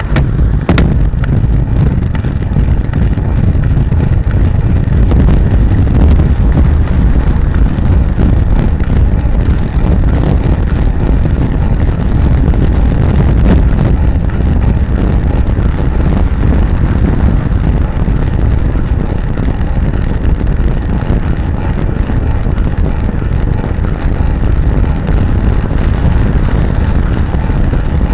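Loud, steady wind buffeting on the microphone of a camera mounted on a bicycle riding at speed on a paved road.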